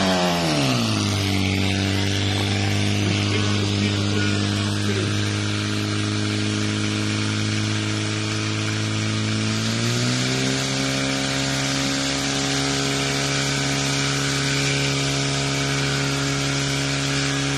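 Portable fire pump engine running at high revs, pushing water through the hoses. It holds one steady pitch, then steps up to a higher steady pitch about ten seconds in.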